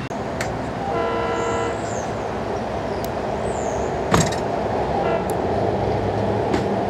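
A train horn sounds about a second in and holds for nearly a second, with a short second toot about five seconds in, over a steady train rumble. There is one sharp knock about four seconds in.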